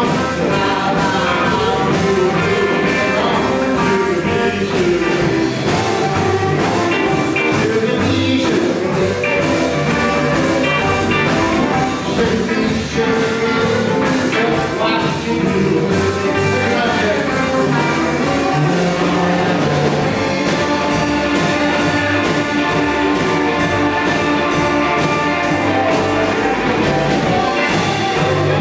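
Live electric blues band playing: two electric guitars, upright bass and drums keeping a steady beat, with an amplified blues harmonica played into a microphone.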